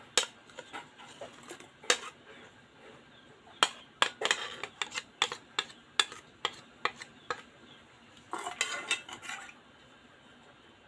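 Kitchen utensils clinking against dishes: a few separate sharp clinks, then a quicker run of them in the middle, and a short, rougher scraping patch near the end.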